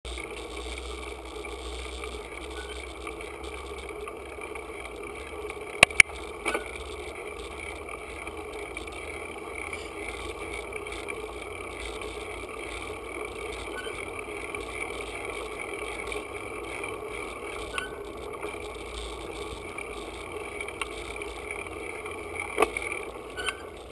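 Steady rolling noise of a bicycle coasting down an asphalt road, picked up by a camera mounted on the bike. Sharp knocks cut through it, the loudest a close pair about six seconds in, with single ones later.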